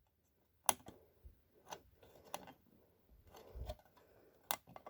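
A few faint, sharp plastic clicks and taps, about five spread across a few seconds, from a smoke detector's case and cover being handled.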